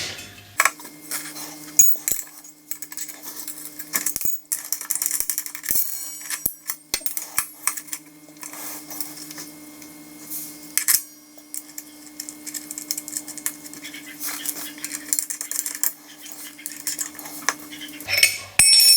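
Metal clinking and rattling as a circular saw blade is taken off a strimmer head and refitted the right way round: many scattered sharp clicks and clinks of metal parts being handled.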